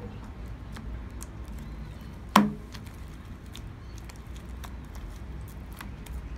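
Hands kneading clear glue-and-borax slime in a plastic tub, with faint sticky clicks and squelches throughout. A single sharp knock comes about two and a half seconds in.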